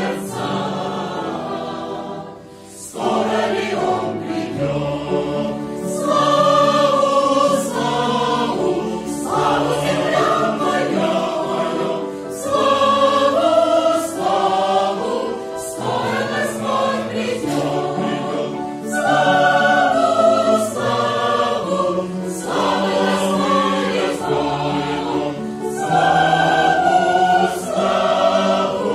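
Mixed choir of men's and women's voices singing a hymn in parts, phrase by phrase, with a short breath break about two and a half seconds in.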